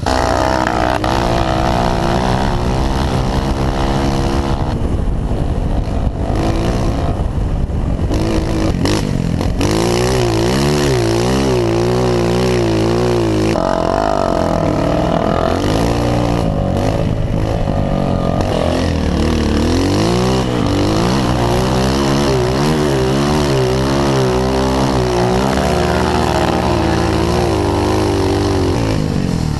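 Honda CRF 230F's single-cylinder four-stroke engine under way on a sandy trail, revving up and down again and again as the rider works the throttle and shifts gears.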